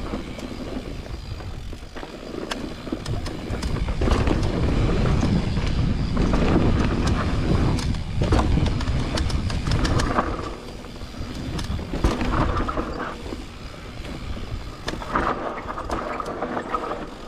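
Mountain bike riding down a dirt trail: rushing wind on the microphone and tyres on dirt, with the bike rattling and clicking over bumps. It is loudest from about four to ten seconds in.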